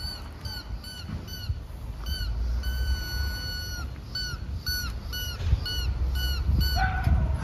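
Squeaky toy squeezed over and over: short squeaks about two or three a second, each with the same pitch that drops at its end, with a couple of longer held squeaks, one lasting about a second near the middle.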